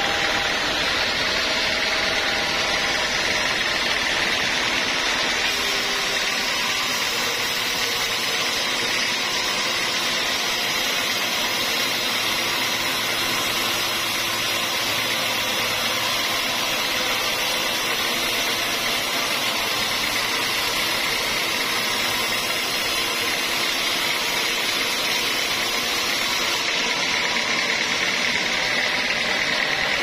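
Band sawmill running with its blade cutting lengthwise through a squared log of African acacia: a steady, even machine noise with a strong high-pitched band that does not change.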